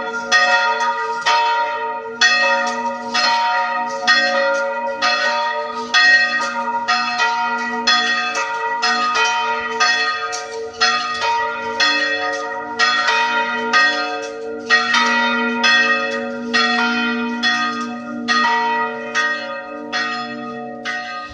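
Church bells rung by rope-pull, about two strokes a second over a steady lingering hum, with uneven gaps where the strokes break off. The broken, irregular ringing is, in the uploader's view, the sign of a ringer without the strength to pull the bell steadily.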